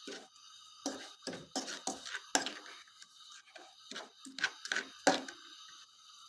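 A fork stirring sugar moistened with a little water in a small old pot: irregular scrapes and clinks of the fork against the pot, a few a second.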